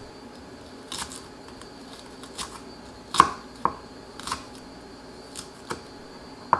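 Chef's knife slicing shiitake mushroom and then green onion on a wooden cutting board: a handful of irregular, sharp knocks of the blade striking the board, the loudest about three seconds in.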